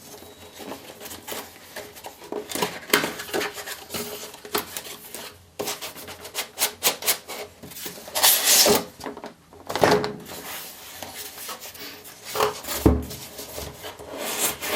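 Cardboard graphics-card box being opened and handled: cardboard sliding and rubbing, with irregular taps and clicks and a few louder scrapes near the middle and toward the end.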